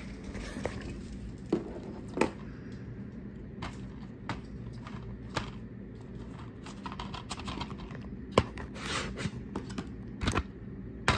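Plastic DVD case being handled: scattered light clicks, taps and scrapes, with a louder pair of clicks near the end.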